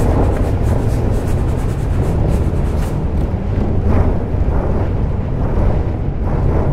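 Large drumheads rubbed and scraped with long rods, making a loud continuous low rumble.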